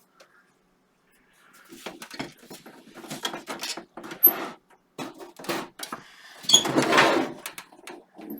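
Desktop PC case being handled while the lid is tried: a run of knocks, clicks and rubbing against the casing, with a longer, louder scrape about seven seconds in.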